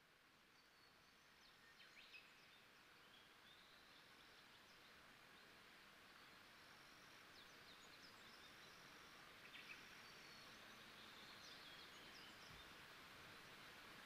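Near silence: a faint hiss of outdoor ambience slowly fading up, with a few faint high chirps about two seconds in and again near ten seconds.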